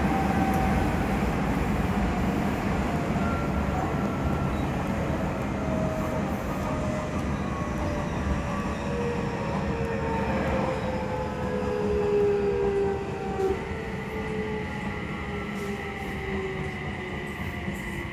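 Odakyu 3000-series electric train with a Mitsubishi IGBT VVVF inverter, heard from inside a motor car: wheel-on-rail rumble with the inverter and traction-motor whine falling steadily in pitch as the train slows. A steady high tone comes in about two-thirds of the way through.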